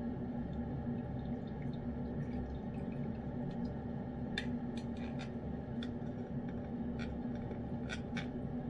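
A knife scooping tuna fillet and broth out of a small metal cat-food can: soft wet squishes and light clicks of the blade against the can, the sharpest few clicks in the second half, over a steady low hum.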